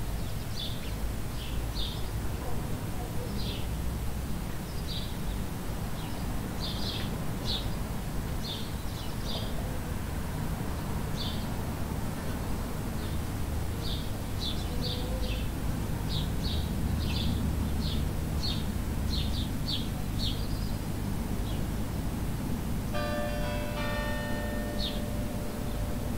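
Garden ambience: small birds chirping in short, repeated calls over a steady low rumble. Near the end, bells begin ringing in several pitched tones.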